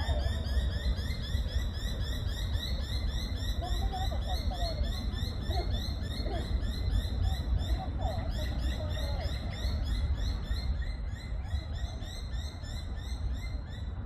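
A steady, evenly spaced train of short high chirps, about four or five a second, from creatures calling near the park's ponds. A few lower, wavering bird calls come in from about four to nine seconds in, over a constant low rumble.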